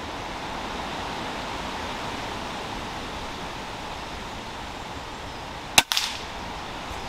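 A single sharp crack about six seconds in from a Weihrauch HW100KT .22 PCP air rifle shot striking a grey squirrel on a branch, followed by a few smaller knocks. Before it, a steady hiss of wind in the woodland leaves.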